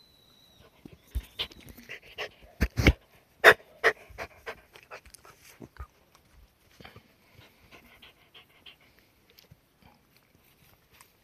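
Cardigan Welsh Corgi panting close to the microphone, mixed with many sharp clicks and knocks that are loudest around three seconds in and thin out after about six seconds.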